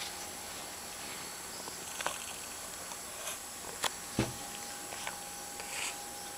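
Cats pouncing at a moth on a wall: a few scattered light taps of paws on the wall and cushion, with one heavier thump about four seconds in, over a steady faint hum.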